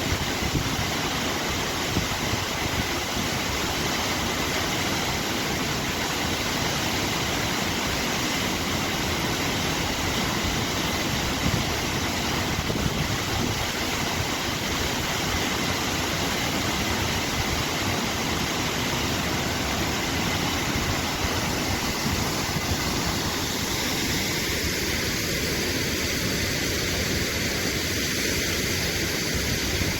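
Waterfall roaring: a steady, loud rush of falling water that thins slightly in tone near the end.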